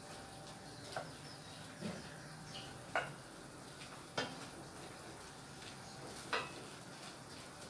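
Wooden spatula knocking and scraping against a stainless steel pan while stirring shrimp, a few sharp, irregularly spaced knocks over a faint steady background.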